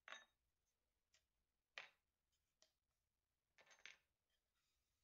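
Light wooden knocks and clicks as frame rails are handled and set against a wooden corner-clamp jig: one at the start, one a little before two seconds in, and a quick cluster late on, with faint ticks between.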